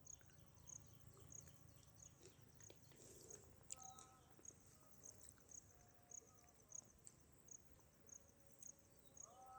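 Faint insect chirping: a short, high chirp repeating evenly about twice a second against near silence.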